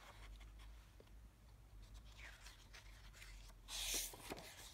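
A large glossy picture-book page being turned: one short paper swish about four seconds in, with a softer rustle of paper a couple of seconds before it.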